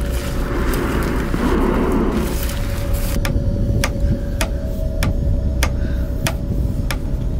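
Film soundtrack sound design: a low rumbling drone with a steady held tone above it. A noisy rush over the first three seconds gives way to a run of sharp clicks, about two a second, slightly uneven.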